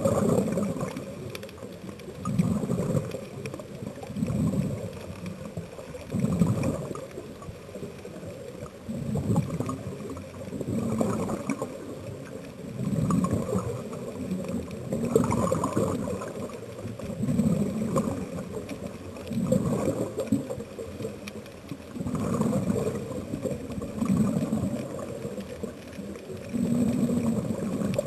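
Scuba diver breathing through a regulator underwater: gurgling, bubbling rushes that swell and fade about every two seconds.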